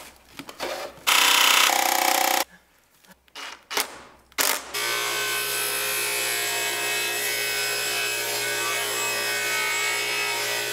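Old Craftsman 12-inch table saw running steadily from about five seconds in while ripping a treated 2x4, a constant machine sound over a low hum. It is preceded by a few short, loud bursts of noise.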